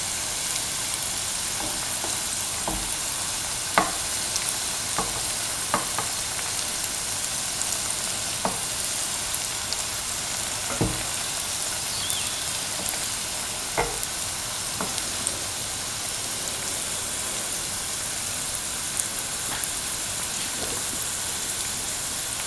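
Mung-bean-filled dough balls frying in hot oil in a pan: a steady sizzle with scattered sharp clicks and pops.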